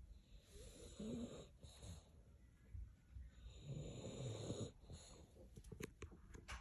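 A sleeping dog snoring: two long, rasping snoring breaths about three seconds apart, with a few faint clicks near the end.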